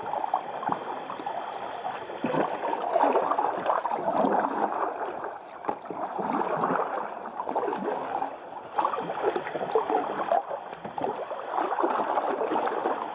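Kayak paddle strokes and water sloshing and gurgling against a Galaxy Sturgeon kayak's hull, swelling and fading every second or two.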